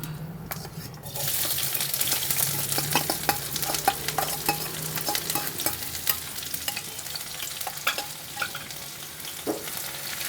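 Finely chopped onion frying in hot oil with cumin and mustard seeds, sizzling strongly from about a second in, with a spoon stirring and clicking against the pan.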